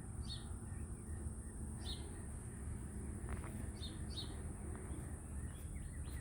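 Birds chirping outdoors: a handful of short, high chirps spaced a second or two apart over a low, steady background rumble.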